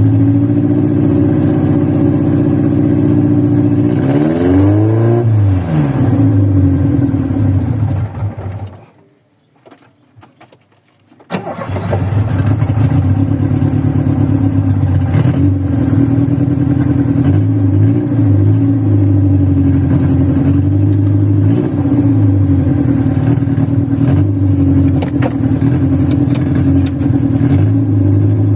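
Carbureted VW Voyage engine idling rough on a cold start, worn old parts making it run unevenly. It revs up and back down once, then dies away and stalls for a couple of seconds before catching again and running on with small uneven rev blips.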